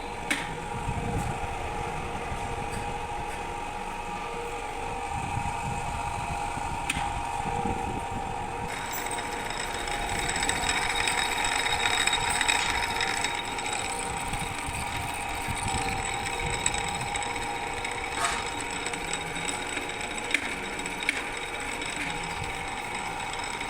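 Drill machine running steadily, a continuous motor hum with a few light clicks; about nine seconds in, a higher whine joins it.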